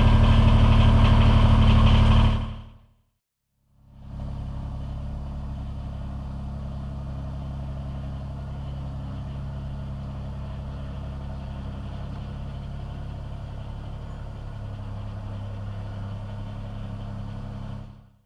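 Kubota BX23S compact tractor's three-cylinder diesel engine running steadily, loud at first, then fading out. After a brief gap it is heard again more quietly, its low note growing heavier near the end.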